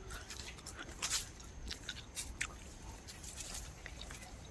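Irregular crunching and clicking close to the microphone, a few sharp clicks in the first half, over a low steady rumble.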